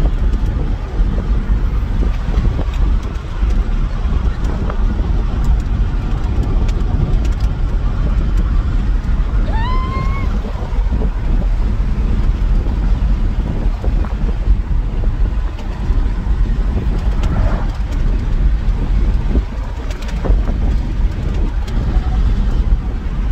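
Car cabin noise while riding in a moving car: a steady low rumble of engine and road. About ten seconds in there is a brief rising squeak.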